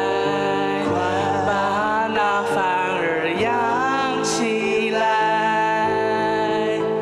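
A man singing a Mandarin song into a microphone over a backing track of sustained chords, his held notes wavering with vibrato.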